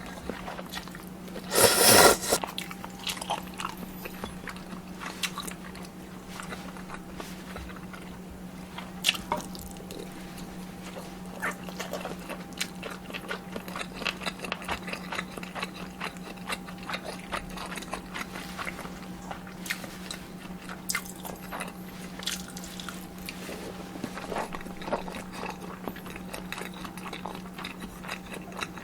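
Close-miked eating of kimchi ramen and dumplings: chewing with many small clicks and crunches, over a steady low hum. A short loud burst of noise about two seconds in is the loudest sound.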